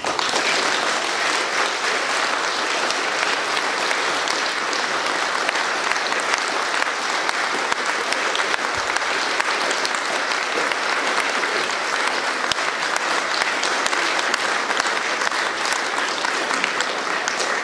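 Audience applauding steadily, a few dozen people clapping together.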